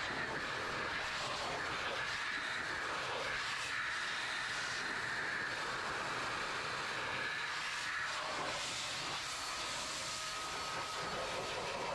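Adam's Mini Air Cannon, a 1200-watt handheld heated forced-air car dryer, running steadily with a high whine as it blasts water off a wet wheel and tyre. About eight seconds in, the whine changes to a lower tone.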